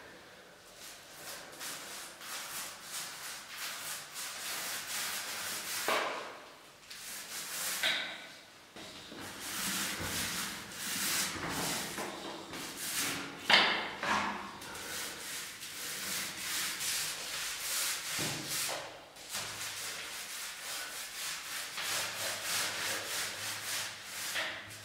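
Paint roller loaded with wet paint, rolled back and forth over plastered walls and ceiling: a repeated rasping swish with each stroke, with a couple of short squeaks and a sharp knock about halfway through.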